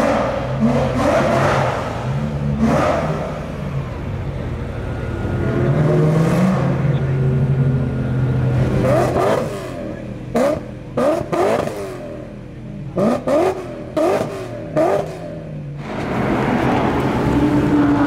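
Supercar engines revving and pulling away, with rising revs in the first few seconds. In the second half comes a quick series of about seven short, sharp throttle blips, each rising and falling in pitch.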